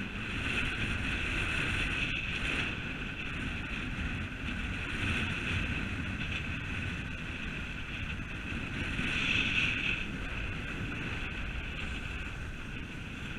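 Strong wind buffeting the microphone over rough sea, with waves breaking and washing against the jetty's rocks as a continuous rumble and hiss.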